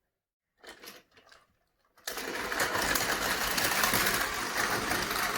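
Battery-powered Tomy Plarail toy trains running on plastic track, their small motors and gears making a steady whirring noise. It starts suddenly about two seconds in, after a near-silent stretch with a few faint soft sounds.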